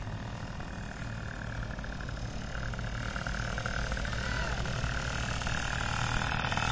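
Paramotor trike's engine and propeller droning steadily as it flies low toward the listener, growing gradually louder.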